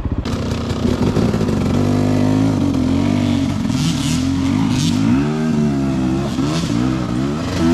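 Enduro dirt bike engine revving and easing off repeatedly, its pitch rising and falling, with a couple of short rushes of hiss about halfway through.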